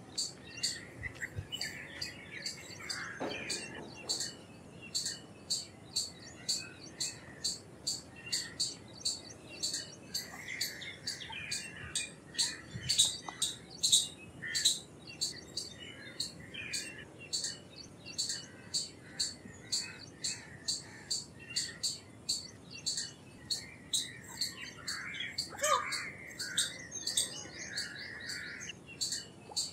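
Indian palm squirrel giving a long series of sharp, high-pitched chip calls, about two a second, with softer bird chirping behind.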